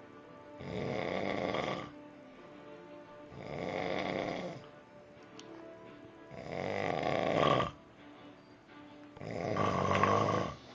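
Loud snoring: four long, rasping snores about three seconds apart, each a little louder than the one before.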